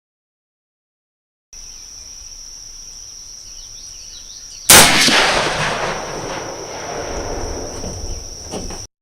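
A single shot from a Mosin-Nagant 91/30 rifle firing 7.62x54R, about halfway through, its report echoing and rumbling away over a couple of seconds. Insects drone steadily at a high pitch behind it, and the sound drops out to dead silence for the first second and a half and at the very end.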